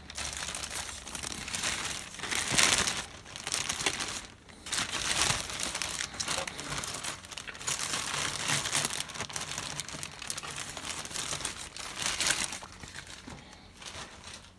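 Clear plastic parts bag crinkling and rustling as hands work it open and handle the plastic parts trees inside. The rustling comes in irregular surges, loudest about two and a half seconds in and again near twelve seconds, then dies away.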